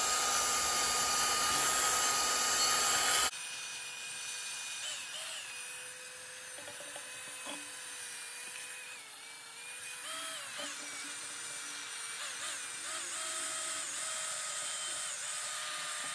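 Cordless drill with a foam polishing pad spinning against an aluminium cold air intake pipe, buffing compound into it. Its motor gives a steady whine; about three seconds in the sound drops abruptly quieter, and its pitch then rises and falls several times as the speed changes.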